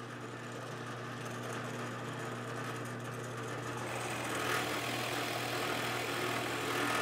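Drill press running steadily with a Forstner bit boring a thumb hole into a wooden handle, the motor's hum under a hiss of the bit cutting wood that grows a little louder about halfway through.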